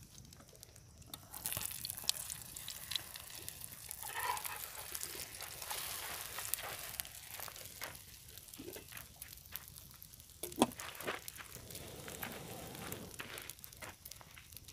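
Food frying in a skillet set on a burning wood campfire, a sizzling hiss with the fire crackling, strongest in the first half. One sharper pop about ten and a half seconds in.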